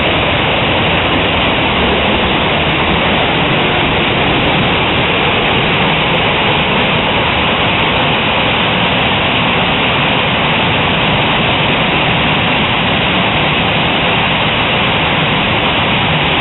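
Hailstones and heavy rain pelting down in a fierce hailstorm: a loud, even hiss of countless impacts that holds steady throughout.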